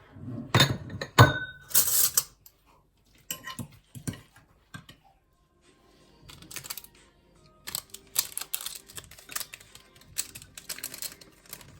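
Irregular clicks, taps and short rustles, with a brief high tone about a second in.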